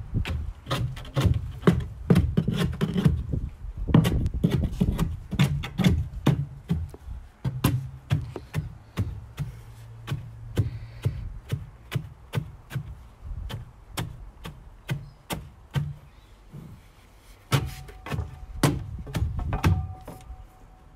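Loose earth being rammed in timber-and-plywood formwork for a rammed-earth wall: a steady run of dull thuds, about two to three a second, a little softer in the middle.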